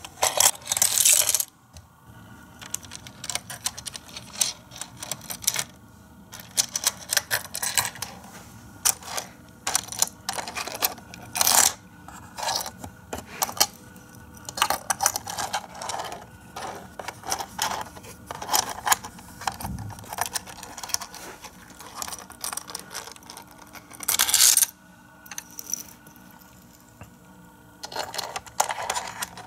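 Hard plastic pieces of a Galoob Micro Machines Boomtown playset clicking, clacking and rattling as they are handled and moved, in irregular sharp clicks and short rattles. The loudest rattles come about a second in and again about three-quarters of the way through.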